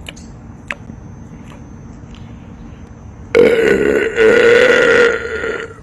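A man's long, loud belch, made on command by swallowing air and forcing it into the esophagus rather than from a fizzy drink. It starts about three seconds in and lasts about two and a half seconds, with a brief break partway through.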